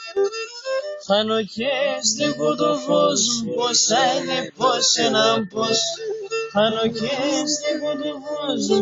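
A man singing a Greek folk song, accompanying himself on a bowed string instrument held upright; the singing and playing grow loud about a second in.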